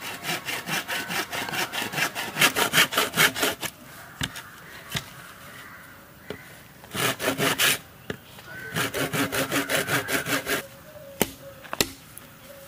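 A saw cutting through a bamboo culm near its node, in quick back-and-forth strokes of about four or five a second. The sawing comes in three bouts with short pauses: a long one at first, a brief one around seven seconds in, and another before the end.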